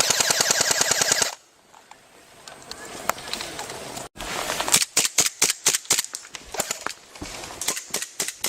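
Airsoft electric gun firing: a fast full-auto burst of rapid clicking shots lasting about a second, then, after a quieter stretch, repeated quick shots in irregular strings through the rest.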